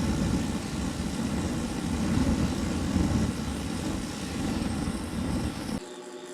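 Propane-fired furnace burner with its combustion air on, giving a loud low rushing noise that stops abruptly near the end, leaving a quieter steady hum.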